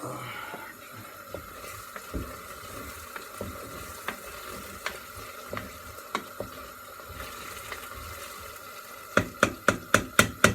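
Food cooking in a pot while a spoon stirs it, clicking against the pot every so often. Near the end comes a quick run of about seven sharp knocks.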